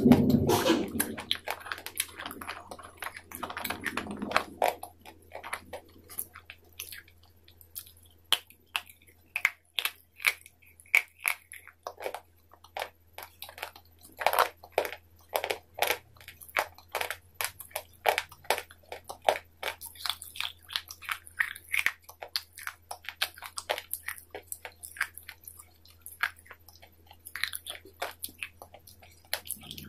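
Close-miked biting and chewing of crisp food: a long run of sharp crunches and clicks, a few a second.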